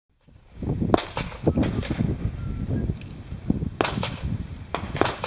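Gunshots from elsewhere on an outdoor shooting range: a quick string of sharp cracks about a second in, then a few more spaced out near the end. A low rumble runs underneath.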